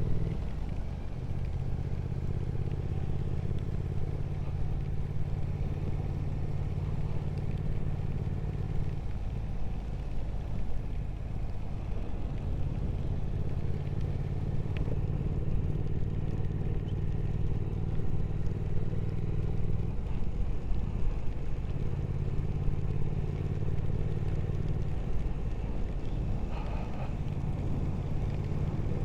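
Motorcycle engine running at a steady road pace under a constant haze of road noise. The engine note eases off briefly twice, about nine and twenty seconds in.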